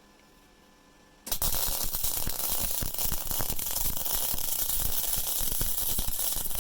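Rohr MIG-250MI inverter MIG welder's arc striking about a second in and then crackling steadily with dense, rapid pops as a bead is laid on 5mm steel at power 7, wire speed 5.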